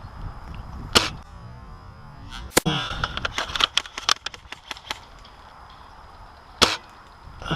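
Airsoft guns firing: a sharp crack about a second in, another about a second and a half later, then a rapid scatter of lighter clicks for a couple of seconds, and one more loud crack near the end.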